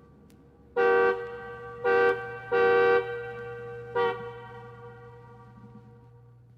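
Car horn honking four times, short, short, longer, short, each blast fading with an echo, over a steady low hum.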